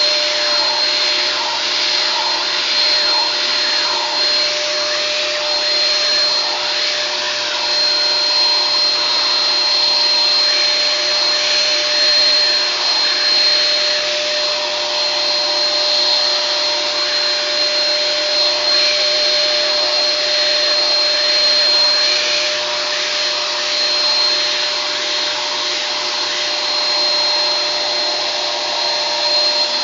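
Vacuum cleaner running steadily, a loud motor hiss with a constant whine and no change in speed.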